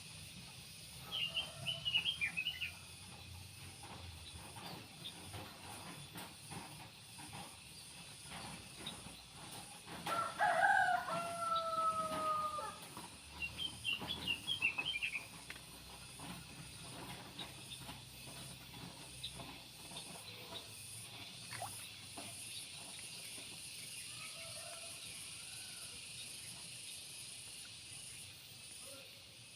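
A rooster crows once, about ten seconds in: a call of two to three seconds that ends in a long held note. Small birds chirp briefly near the start and again a few seconds after the crow, over a steady high hiss.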